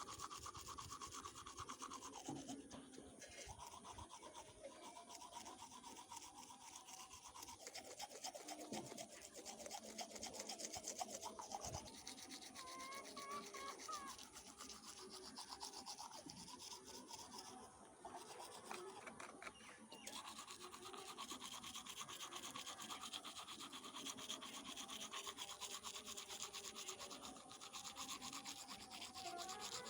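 Domestic village chickens, faint, with short pitched calls among a rapid scratchy rattle.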